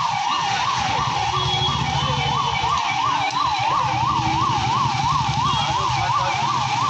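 Electronic siren warbling rapidly up and down, about three to four rises and falls a second, at a steady level, over the hiss of heavy rain and street noise.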